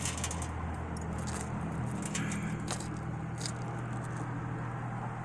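A few short metallic clinks as a thick 12 mm link chain is handled and pushed against a metal pendant's bail, which it is too thick to pass through. A steady low hum runs underneath.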